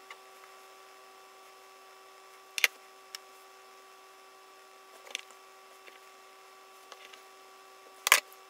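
Steady electrical hum with a few small, sharp clicks and taps from makeup tools being handled, the loudest click near the end.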